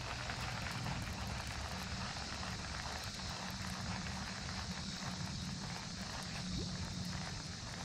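Fishing reel being cranked, a run of faint quick ticks as a topwater lure is retrieved, over a steady outdoor hiss and low rumble.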